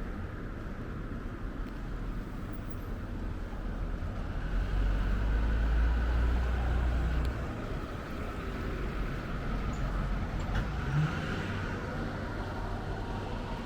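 Outdoor street ambience with a low rumble that grows louder near the middle and drops off suddenly, and a steady high-pitched hiss throughout.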